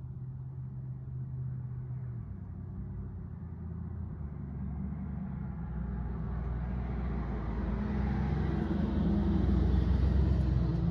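A road vehicle passing, a low engine and road rumble building steadily over several seconds and loudest near the end.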